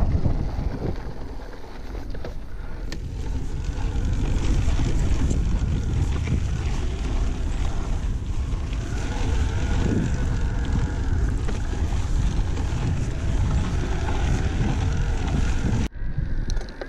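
Wind buffeting an action camera's microphone as an electric mountain bike rolls along a dry dirt trail, mixed with the rumble of its tyres on the dirt. The noise is steady and cuts out briefly near the end.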